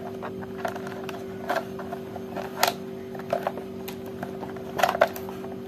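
Light plastic clicks and knocks as a Philips blender's plastic motor housing and its parts are handled and fitted together. The clicks come a few at a time, with a small cluster near the end, over a steady low hum.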